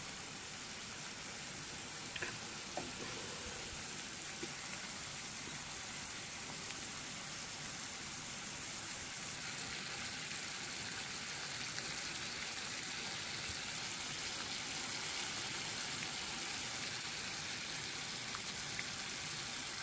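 Sugar and corn-syrup mixture boiling hard in a pot on the stove: a steady bubbling hiss with a few faint pops. The syrup is being cooked down toward the thread stage for hard candy and is not yet ready.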